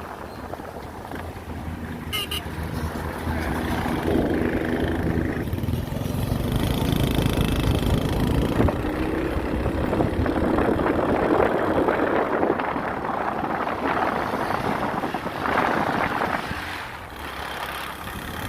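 A motor vehicle driving on a road: its engine runs steadily under road and wind noise, growing louder about four seconds in.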